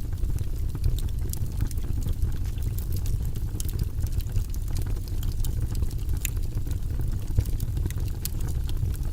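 Fire burning in a fireplace: a steady low rumble with scattered sharp crackles and pops.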